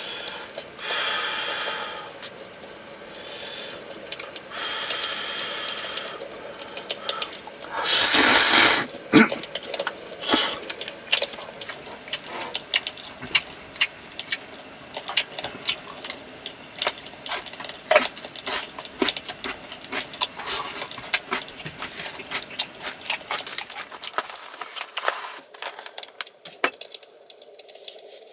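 Many small clicks, taps and clatters of tableware and utensils at a meal, with a short loud hiss about eight seconds in.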